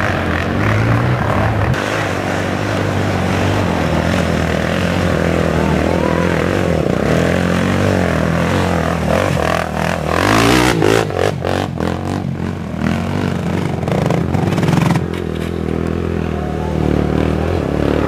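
Racing quad (ATV) engines revving, the pitch rising and falling with the throttle. There is a louder burst of rattling noise about ten seconds in.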